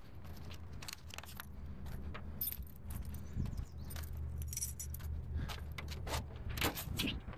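A bunch of keys jangling and clinking in hand, repeatedly and unevenly, over the steady low hum of an idling engine.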